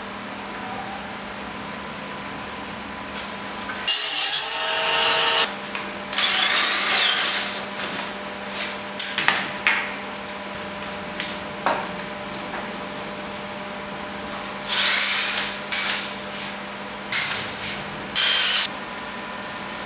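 Cordless drill boring holes into a wooden board in several short bursts of a second or two each, the motor whining as the bit cuts through the wood, with small knocks and clicks of handling between.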